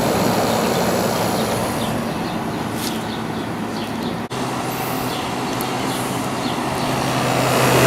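Hampton Bay 5,100 BTU window air conditioner running with its Samsung compressor on: a steady rush of air from the fan over a low, smooth hum. About halfway through there is a brief break, after which the low hum is a little stronger.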